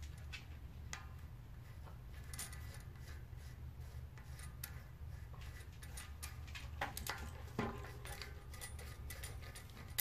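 Steel cogs of an 11-speed 11-50 bicycle cassette clinking and clicking as they are slid by hand onto the rear hub's freehub body: light metallic taps throughout, with a louder flurry about seven to eight seconds in, over a low steady hum.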